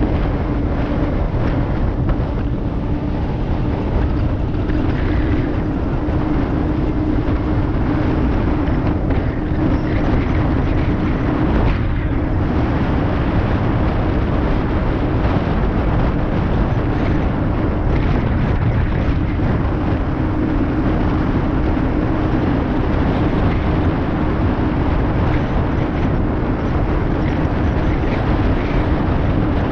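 Wind rushing over the camera microphone on a fast bicycle descent at about 40–45 km/h, with a steady hum underneath.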